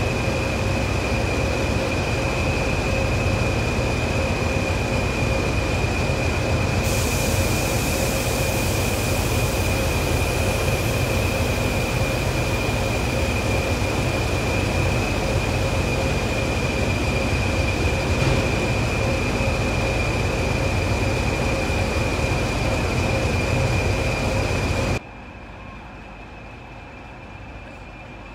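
Class 20 diesel locomotive standing with its English Electric engine idling: a steady drone with a steady high whine over it, and a hiss joining about seven seconds in. Near the end it cuts to a much quieter, distant station background.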